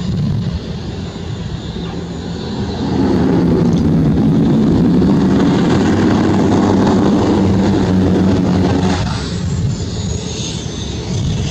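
Cessna Grand Caravan's Pratt & Whitney PT6A turboprop running with a steady propeller hum. It grows louder about three seconds in and drops back a little after nine seconds, when a high turbine whine glides down.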